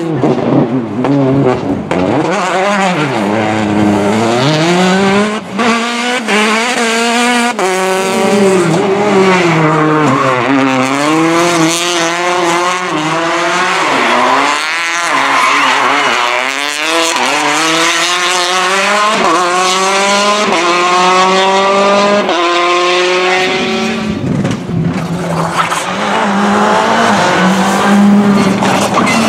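Several rally cars in turn, among them a Citroën DS3 and a Škoda Fabia R5, engines revving hard and rising and falling in pitch through gear changes as they brake, corner and accelerate past, with tyre squeal at times.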